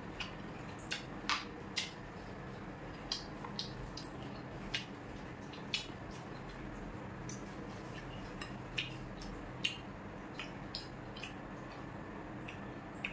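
Kitchen utensils and dishes being handled during food preparation: light, irregular clicks and clinks, about one a second, over a steady low hum.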